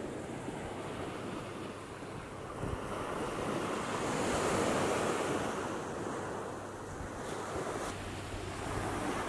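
Small surf washing onto a sandy beach, mixed with wind rumbling on the microphone; the wash swells to its loudest about four to five seconds in.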